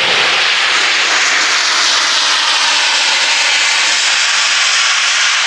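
Airbus A321neo's twin turbofan engines running at high power as the airliner rolls along the runway, typical of a takeoff roll. A loud, steady rushing noise that holds unchanged throughout.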